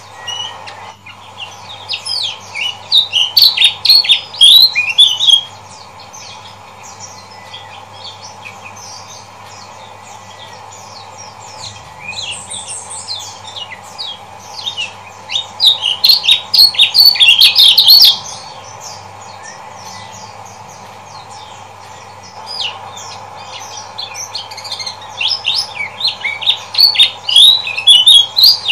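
Lemon-bellied white-eye (kecial kuning) giving rapid, high chattering 'ciak ciak' calls in three bouts of a few seconds each, with pauses between. A steady low background hum runs underneath.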